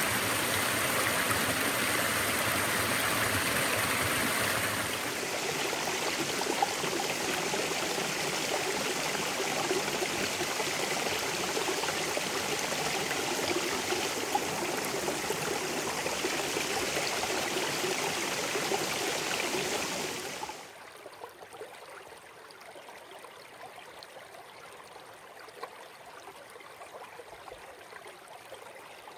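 Running water of a stream, a steady rushing flow. About five seconds in the sound shifts, and about twenty seconds in it drops suddenly to a much quieter, gentler trickle.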